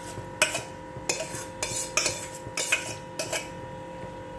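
A metal spoon clinking and scraping against bowls, about ten sharp knocks, as chopped mango is tipped into custard and stirred in.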